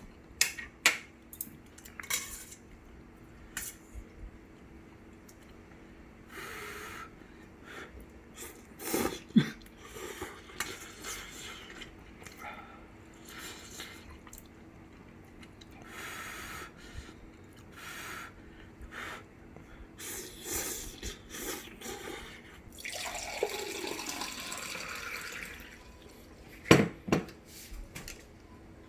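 Ramen noodles being eaten: several slurps, with chopsticks clicking and knocking against the bowl in between.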